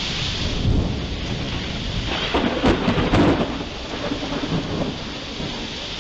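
Thunder rumbling and crackling over steady rain, swelling loudest about halfway through.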